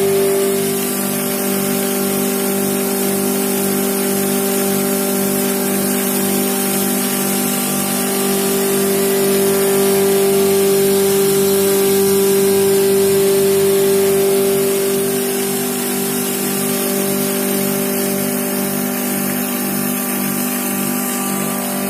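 Electric pulverizer mill, a stainless-steel grinding machine for spices and flour, running steadily: a loud, even motor hum with a strong low tone and overtones, a little louder in the middle.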